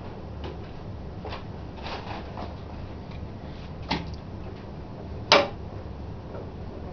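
A few scattered clicks and knocks, the loudest a sharp knock about five seconds in, from the parts of an antique Emmert pattern maker's vise being handled.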